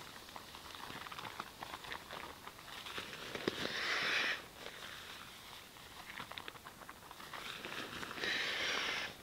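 Nylon pump sack and inflatable sleeping pad being handled, crinkling and rustling throughout. Twice, about five seconds apart, a hissing rush of about a second, typical of the sack being squeezed to push air into the pad.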